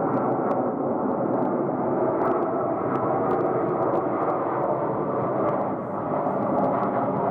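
Airbus A350's Rolls-Royce Trent XWB jet engines, a loud steady roar of jet noise.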